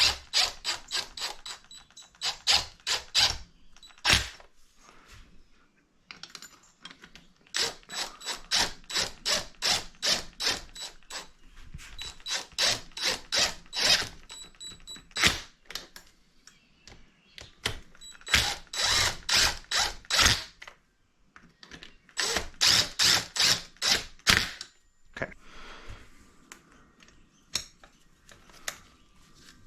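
Ratchet wrench clicking in quick bursts of several clicks a second, with short pauses between, as bolts on a small single-cylinder engine's cylinder head are run down lightly before torquing.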